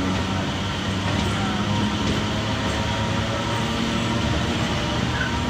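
Steady running noise of a passenger train heard at an open coach window, its wheels rumbling on the rails as it moves close alongside a freight train of hopper wagons.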